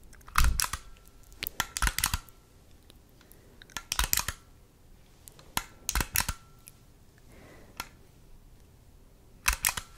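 Close-up mechanical clicking from a handheld camera and small flashlight. The clicks come in five quick clusters, the first and loudest about half a second in. Several clusters end in a short, faint ringing tone.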